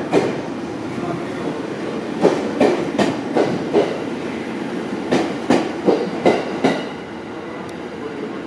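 JR East Tohoku Line local electric train pulling out of the station past the platform, with a steady rumble. Its wheels knock over the rail joints in quick runs of clicks, clickety-clack, as each car rolls by: a run about two seconds in and another about five seconds in.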